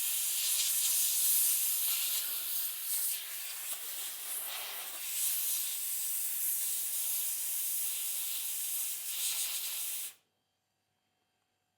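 Compressed air hissing as it is sprayed through a laptop's cooling fan to blow out clogged dust. It runs in one long blast that swells and dips slightly, then cuts off suddenly about ten seconds in.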